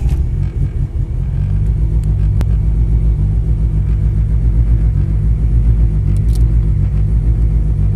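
Cold start of a turbocharged Mitsubishi 4G63 four-cylinder. It fires right away, runs a little unevenly for about a second, then settles into a steady, raised cold-start idle of about 1,500 rpm that is set high to warm the engine faster.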